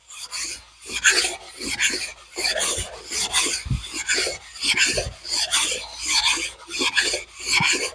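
320-grit sandpaper on a flat oak board, rubbed back and forth by hand across the head deck of a Mopar 318 V8 engine block, making a rasping scrape at about two strokes a second. The sanding is cleaning off gasket residue and knocking down small imperfections so the head gaskets seal.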